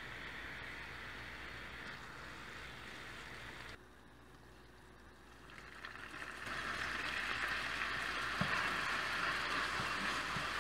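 Melted butter sizzling in a hot nonstick frying pan, a steady hiss. It drops away about four seconds in and comes back louder from about six seconds in, once milk is added to the butter and stirred in.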